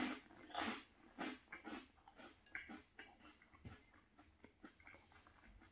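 Close-up chewing of a spoonful of fried yucca snack soaked in gumbo, a wet crunch about one and a half times a second that softens after the first couple of seconds.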